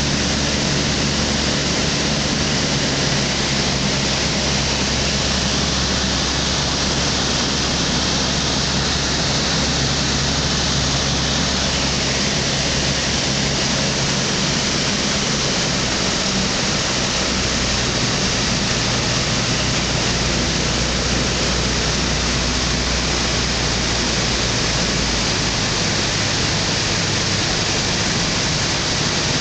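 Thruster T600N microlight's engine running steadily under a loud rush of wind and airflow noise on the cockpit microphone, its note shifting slightly partway through.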